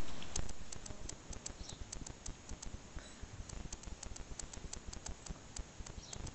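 Puppy claws clicking and pattering irregularly on hard concrete paving as whippet pups scamper about. A low bump sounds at the very start.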